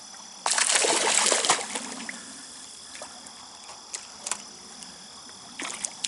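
Hooked brown trout splashing at the stream's surface as it is reeled in: one loud burst of splashing lasting about a second, a few small clicks, and a shorter splash near the end, over the steady rush of the stream.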